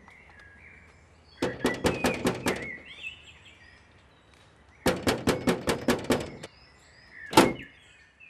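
Hand knocking on a painted metal door: two quick runs of about eight knocks each, then one single harder knock near the end.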